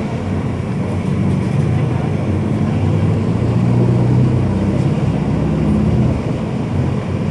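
Mercedes-Benz OF-1721 bus's diesel engine running steadily, with a low even note.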